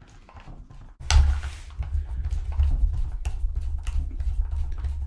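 A screwdriver backing screws out of a Black & Decker Firestorm cordless drill's plastic housing: a run of small clicks and creaks, over a low rumble that starts about a second in.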